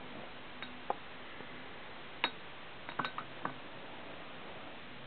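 About half a dozen light, sharp clicks and taps of beer containers being set in place on a stacked pyramid, scattered and unhurried, the clearest around two and three seconds in, over a faint steady hiss.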